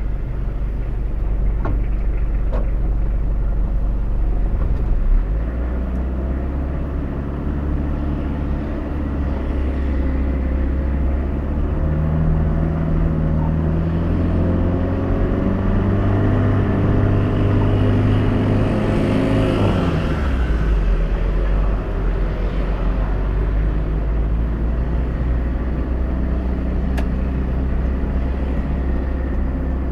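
Car engine and road noise heard from inside the cabin while driving. The engine note climbs steadily for several seconds, then drops sharply about two-thirds of the way through, as at a gear change or lifting off the throttle.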